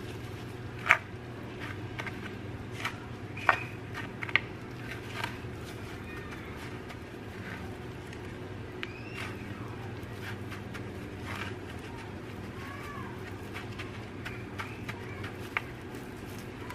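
Plastic-gloved hands breading a pork cutlet in panko in a glass baking dish: soft rustling and crinkling with a few sharp clicks, the loudest about a second in. A steady low hum runs underneath, and a few short chirps come through now and then.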